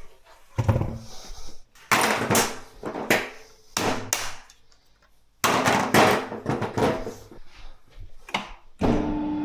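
A series of separate knocks and clatters, like tools and parts being handled. Near the end a steady hum with a clear even tone starts abruptly and keeps going.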